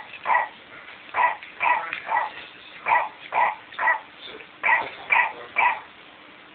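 McDonald's Clifford the Big Red Dog toy giving electronic barks, three quick yips at a time, the set repeating about every second and three quarters.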